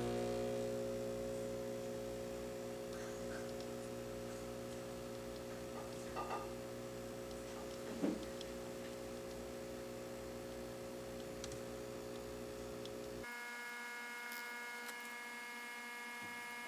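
Breville Barista Express vibratory pump humming steadily while an espresso shot extracts, with a couple of faint clicks; the low part of the hum drops away about thirteen seconds in.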